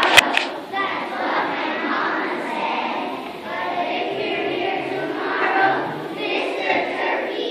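A large group of young children singing together in unison, a first grade class choir, with a sharp knock right at the start.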